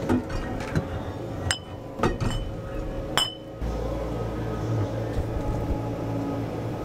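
Glass bottles clinking as they are set onto the wire shelf of a fridge: a few sharp, ringing clinks in the first half. A steady low hum starts about halfway through.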